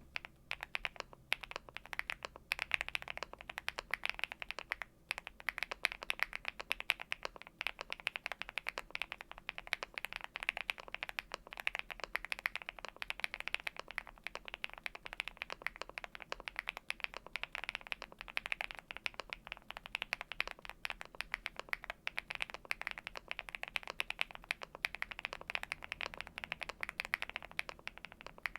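Steady fast typing on a Leobog Hi75 mechanical keyboard with lubed Gateron Smoothie linear switches, lubed stabilizers, foam and Cherry-profile keycaps: a dense run of key clacks with a brief pause about five seconds in.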